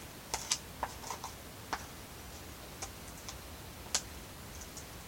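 Irregular sharp clicks and ticks, about a dozen, from glue slime being stirred in a clear plastic tub; the sharpest comes about four seconds in.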